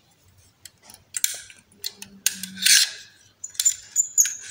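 Metal clicks, rattles and scraping from a hand staple gun's magazine as its spring-loaded plunger and coil spring are slid out, with a thin metallic ringing near the end.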